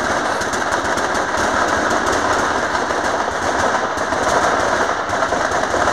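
Mascletà firecrackers going off in a dense, rapid, unbroken crackle of sharp reports.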